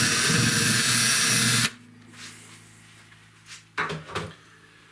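Handheld power drill with an 11/64-inch bit running at speed, boring a bridge pin hole through a wooden guitar bridge, then stopping abruptly about a second and a half in. A couple of short knocks follow near the end.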